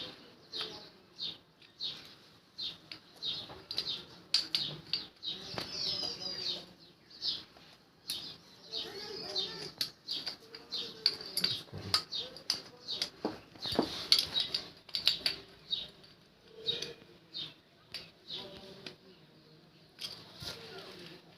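Irregular metallic clicks and clinks of hand tools and steel brake parts being handled while a motorcycle's front drum brake shoes and springs are fitted.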